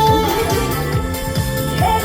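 Music of a trot song: an instrumental passage with little or no singing, over a steady repeating beat.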